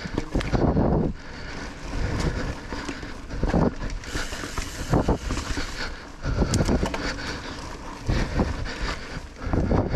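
Kona Honzo hardtail mountain bike ridden along a dirt singletrack: tyres rolling over the trail with irregular thumps and rattles as the bike hits bumps, and wind on the microphone.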